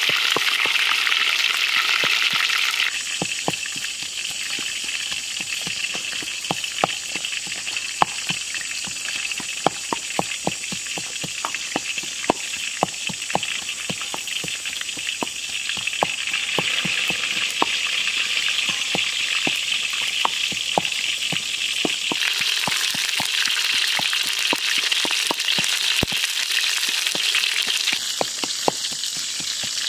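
Pestle pounding in a mortar: sharp, irregular knocks about one or two a second, over a steady high hiss.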